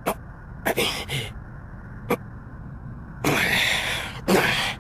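A man's wordless breathy vocal sounds: a few short huffs, then a longer strained exhale and another huff near the end. They are the sounds of a cornered man hesitating before he answers.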